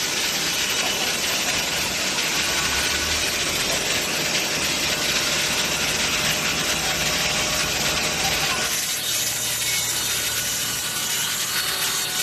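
Yongpeng YP-5A-400 5-axis bridge stone cutter running, its saw blade cutting stone with a steady, harsh grinding hiss. About nine seconds in the sound turns duller.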